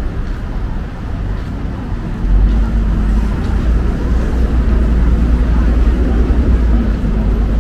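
City street ambience of road traffic: a steady deep rumble that grows louder about two seconds in.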